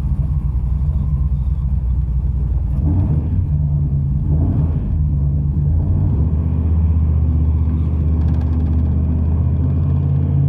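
The 408 stroker V8 of a 1985 Dodge D150 pickup, fuel-injected by a Holley Sniper EFI, running with a steady low rumble. Its note shifts slightly about six seconds in.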